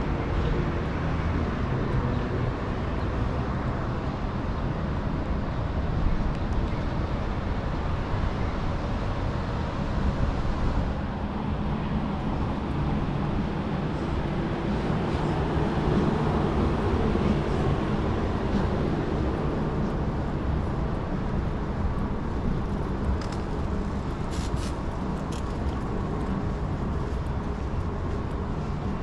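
Downtown street traffic: cars and other vehicles running and passing, a steady wash of engine and tyre noise with a low engine hum underneath.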